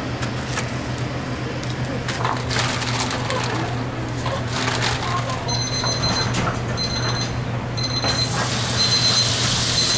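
Street-food stall ambience: a steady low hum with scattered clicks and background voices. From about halfway a high electronic beep repeats about once a second, and near the end a hiss of deep-frying oil sizzling rises.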